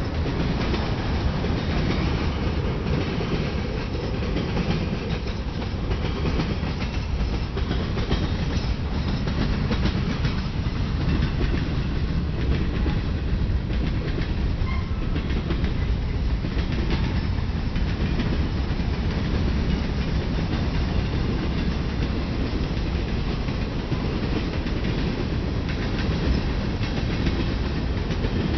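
Cars of a long mixed freight train rolling past at close range: a steady rumble of steel wheels on rail, with repeated clicks as the wheels cross rail joints.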